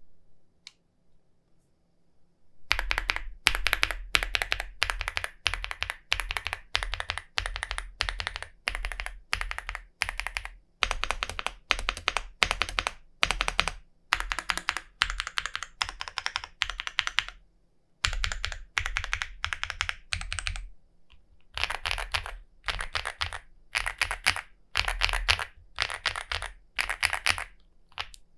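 Chilkey ND75 mechanical keyboard, mounted with split O-rings, being typed on in fast continuous runs of keystrokes. The typing starts about three seconds in and breaks off briefly twice.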